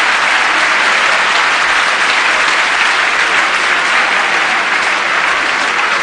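Large audience applauding: dense, steady clapping with no let-up.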